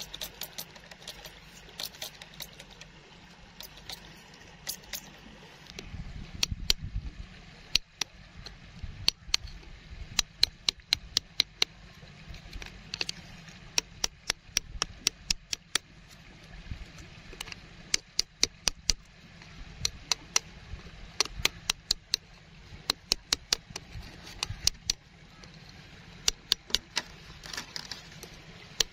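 A digging tool picking and scraping at gravelly ground around a buried stone: sharp clicks and taps of pebbles and grit, coming in irregular quick runs.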